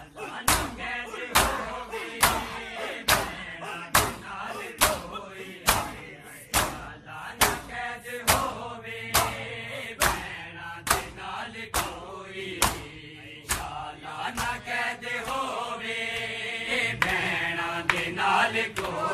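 Matam: a crowd of men beating their chests with open palms in unison, making sharp slaps a little more than once a second, with men chanting a mourning lament between the strikes. The slaps grow fainter near the end as the chanting rises.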